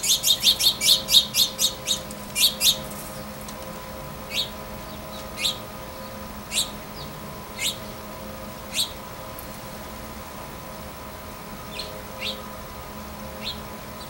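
Small songbird chirping: a fast run of short high chirps that slows about three seconds in to single chirps roughly a second apart, with a few fainter chirps near the end.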